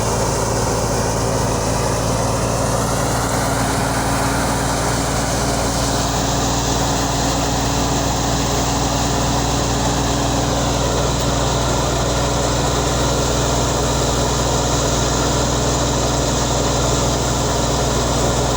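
Wheat-harvesting machine running steadily under engine power: a constant loud drone, with a faint high whine that drifts slowly up and down in pitch.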